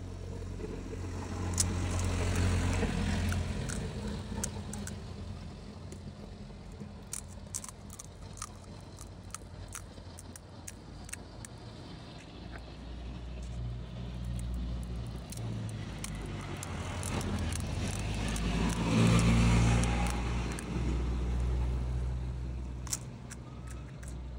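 Road vehicles passing close by: a low engine rumble swells and fades about two seconds in, and again louder around twenty seconds in. Small sharp clicks and taps are scattered throughout.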